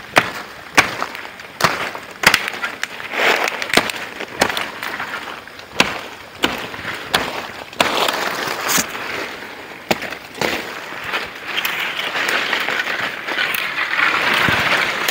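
Machete chopping at wood in the brush: sharp, irregular knocks about one to two a second, with leaves and branches rustling that grows thicker over the last few seconds.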